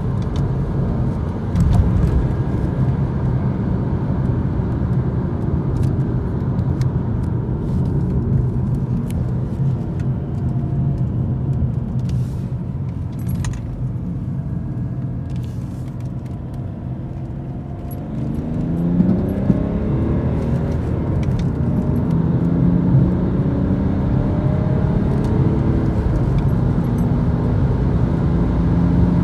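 BMW 325d's 3.0-litre M57 straight-six diesel heard from inside the cabin, running steadily and easing off as the car slows. About two-thirds of the way through, after a downshift, it pulls hard under acceleration, its note rising steadily.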